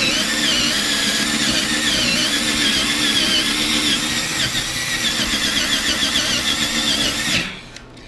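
Power drill driving a 1-inch hole saw through a thick desk top, running hard with a wavering high squeal as the saw grinds through the bottom layer. The drill stops about seven seconds in, then starts again briefly near the end.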